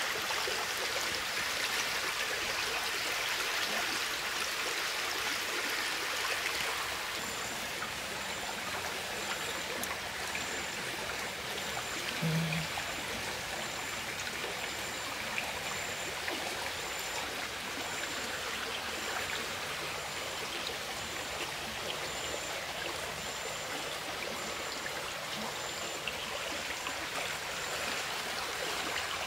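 Shallow stream water running and trickling steadily, a little fuller in the first several seconds. From about seven seconds in, a faint high-pitched pulse repeats about once a second, and a brief low thump comes near the middle.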